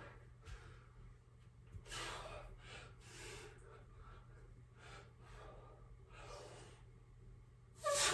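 A man breathing hard during pull-ups: a short forceful exhale with each rep, roughly once a second or so, and a louder gasping breath near the end.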